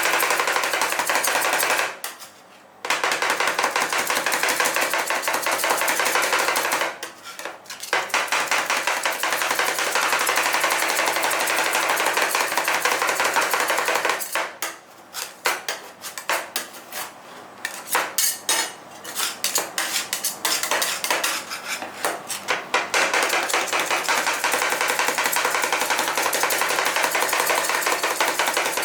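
Metal spatulas chopping rapidly on a rolled-ice-cream cold plate, a fast run of sharp taps breaking chocolate candies and crackles into the cream. There are two brief pauses early on, and the taps turn looser and uneven for a while in the middle.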